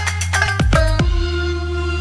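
Background music with a steady deep bass and quick falling pitch sweeps, settling on a held chord about a second in.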